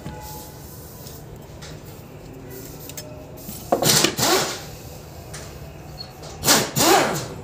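Two short bursts of scraping and rubbing as an opened angle grinder is handled and shifted on the floor, the first about four seconds in and the second near the end, each with a squeaky pitch that rises and falls.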